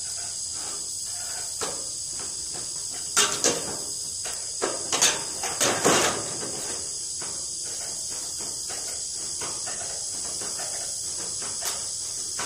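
Hand tin snips cutting the edge off a ribbed steel roofing panel: a run of sharp metal crunches about three to six seconds in, with a few fainter clicks later. Crickets chirr steadily and high throughout.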